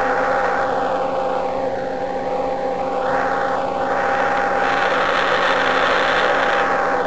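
Radio receiver noise, which the uploader presents as Jupiter's radio emission: a continuous rushing hiss that dulls and brightens again over a second or two, with a few steady tones running under it.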